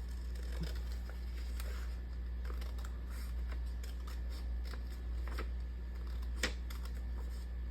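Paper rustling and being handled, with scattered light clicks and taps and one sharper tap about six and a half seconds in, over a steady low hum.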